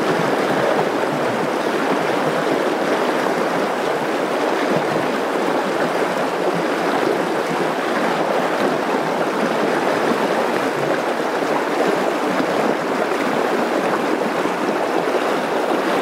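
Fast, shallow river water rushing steadily over a riffle of white water.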